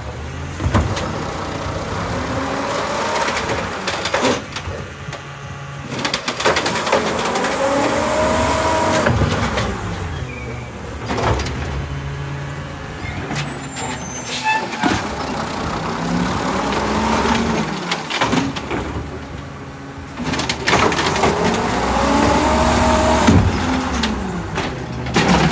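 Automated side-loader garbage truck with a natural-gas engine working its lift arm: the engine revs up to drive the hydraulics, with a whine that rises and falls as the arm lifts, dumps and lowers a cart, about three times over, with short lulls between.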